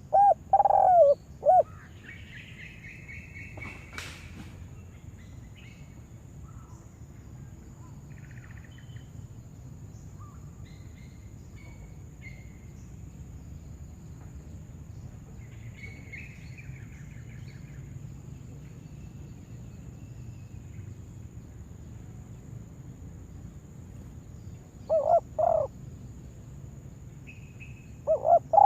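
Spotted dove cooing in short phrases: once just after the start and again near the end. Faint chirps of other small birds come in between, and there is a single sharp click about four seconds in.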